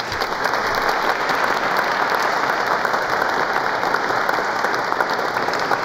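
An audience applauding, starting suddenly and keeping up steady clapping.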